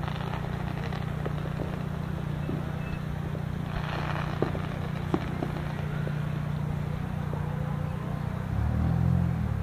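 Distant fireworks: a few scattered faint pops and a brief hissing burst about four seconds in, over a steady low hum.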